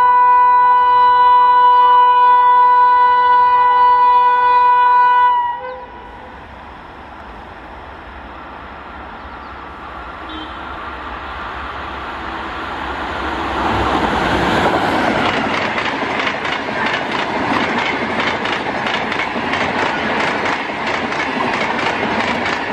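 WAP-5 electric locomotive's horn sounding one long steady note that cuts off about five seconds in. Then the Kanpur Shatabdi Express, running at about 130 km/h, comes on as a rising rush and its coaches pass with a fast, even clatter of wheels over the rail joints.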